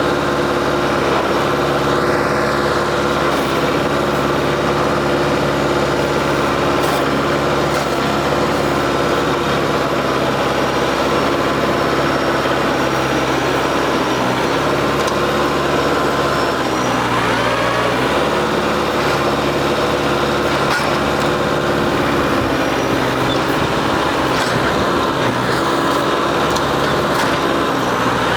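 New Holland WorkMaster 55 tractor's diesel engine running steadily, its pitch dipping briefly under load about seventeen seconds in before recovering.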